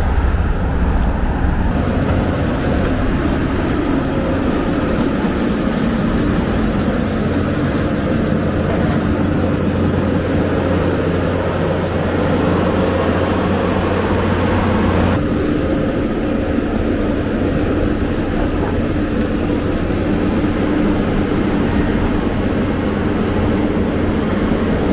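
Diesel engines of heavy road-construction machinery, a bulldozer and a roller, running steadily with a low hum. The sound changes abruptly about fifteen seconds in.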